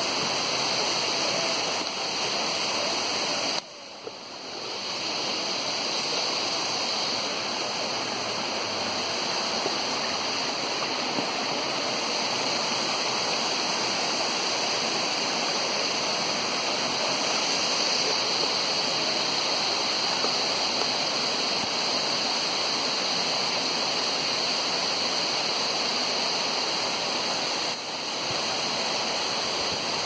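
Steady rush of falling water from a waterfall, dropping away sharply about four seconds in and swelling back within a second.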